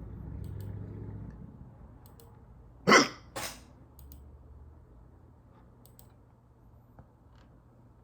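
A person's hiccup about three seconds in: one sharp, loud burst, followed half a second later by a shorter, quieter one.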